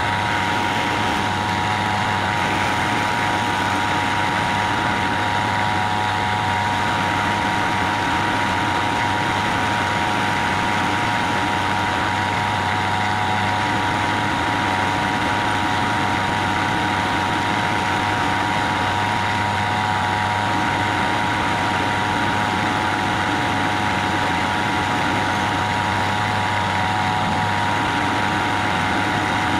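Hafco AL336 metal lathe running steadily while its tool turns a taper on a metal bar, with a constant high whine over a low hum.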